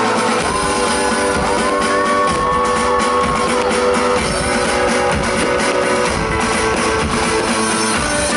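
Live pop-rock band playing an instrumental passage of a song: guitar, bass and drums over a steady beat, with a gliding lead melody line.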